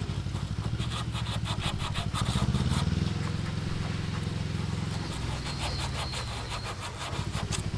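An engine running steadily with a low, even pulsing hum, over two bursts of rapid scraping strokes from a hand tool working in a door hinge pin hole.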